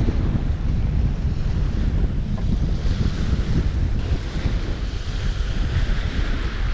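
Strong wind buffeting the microphone in gusts with a low rumble, over the wash of choppy waves on a wind-roughened lake; the hiss of the water is stronger in the second half.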